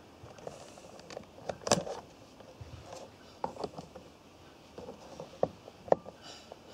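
Scattered sharp clicks and light knocks from a servo tester and hobby RC servo being switched on, the loudest about 1.7 s in and a few more over the last two seconds.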